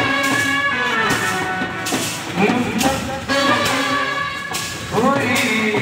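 Indian brass band playing a tune loudly, trumpets carrying the melody over a sousaphone, with a few sliding notes.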